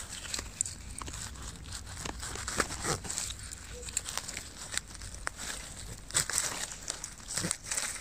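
Dry grass, twigs and leaf litter rustling and crackling as a gloved hand and knife push through the undergrowth around a mushroom, with irregular sharp snaps, a few louder ones about two and a half, six and seven and a half seconds in.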